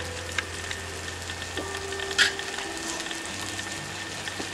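Sliced onions with tomato and spice pastes sizzling steadily in hot oil in a pan, with one sharp click or crackle about two seconds in.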